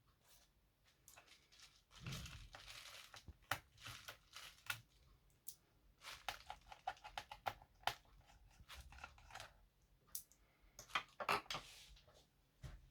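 Faint, irregular clicks, scrapes and rustling from hands handling laptop parts during a drive swap, with busier bursts about two, six and eleven seconds in.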